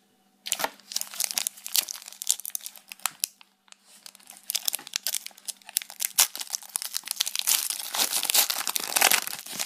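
Foil wrapper of a Pokémon TCG booster pack crinkling and tearing as it is opened by hand. A dense crackle starts about half a second in and gets busier near the end.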